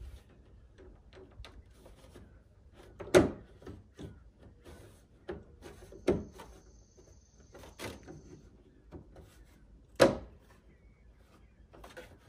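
Plastic hood trim piece being pressed onto a car hood, its compression tabs snapping in with sharp clicks and knocks: three loud snaps about three, six and ten seconds in, with lighter knocks between.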